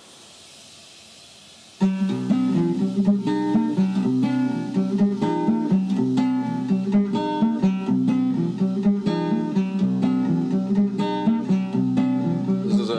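Faint hiss, then about two seconds in a guitar solo record starts suddenly: a run of quick plucked guitar notes and strums, the source sound being sampled into the sampler.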